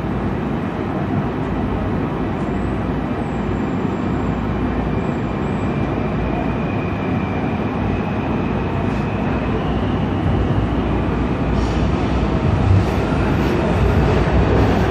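Washington Metro Breda rehab railcar running through a tunnel, heard from inside the car: a steady rumble of wheels on rail. A faint high whine comes in the middle, and the noise grows louder over the last few seconds, with a few faint clicks.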